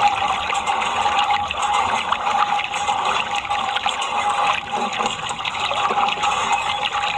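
Water running and splashing in a steady stream, as in washing muddy toy vehicles.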